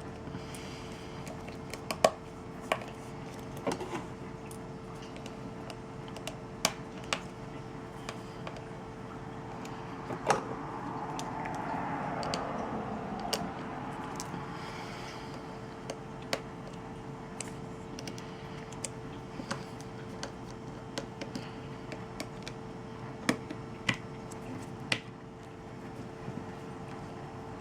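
Small irregular clicks and taps of a precision screwdriver and tools on the tiny screws and plastic frame of a Nexus 5X smartphone as the screws are taken out, over a steady background hum.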